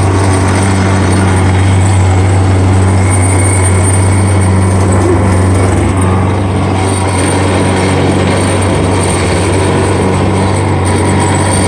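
CNC milling machine cutting metal with a worn high-speed-steel end mill, running with a loud, steady low buzz of chatter and vibration. The vibration comes from thin stock sticking up high out of the vise and the nearly worn-out cutter.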